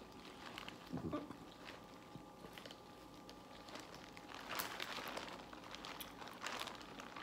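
Faint crinkling and crunching as seafood-boil food is handled and picked apart, with a soft thump about a second in; the crackling gets busier in the second half.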